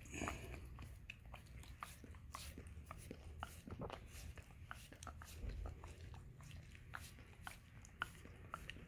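A dog licking a person's bare toes: faint, wet clicking licks, irregular, about three a second.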